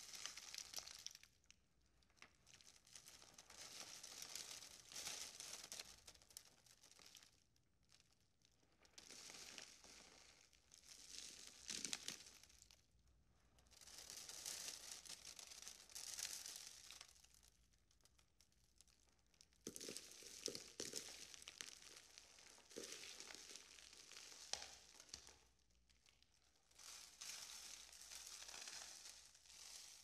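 Faint wind blowing in gusts: a high hissing rush that swells and dies away about six times, each gust a few seconds long with quieter lulls between.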